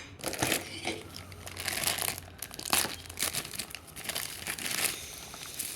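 Packaging of a Funko Soda can crinkling and tearing as it is unwrapped by hand, an irregular run of rustles and crackles.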